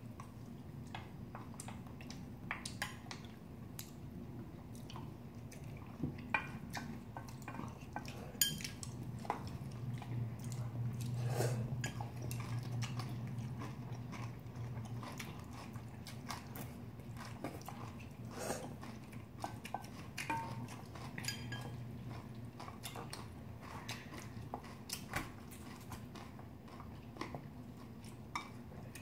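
Two people eating: chewing and biting, with chopsticks and spoons clicking against stainless-steel bowls and ceramic dishes at irregular moments. A low hum swells for a few seconds in the middle.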